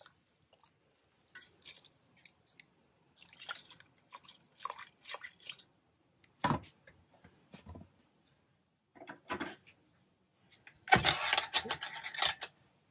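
Wet yarn being lowered and pressed down into a stainless-steel pot of alum mordant water: intermittent splashing, dripping and squishing. A sharp knock comes about six and a half seconds in, and a louder burst of handling noise near the end.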